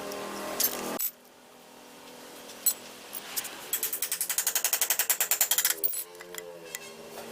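Rapid, even clicking at about ten clicks a second for some two seconds midway, with a few single sharp knocks before it, over background music.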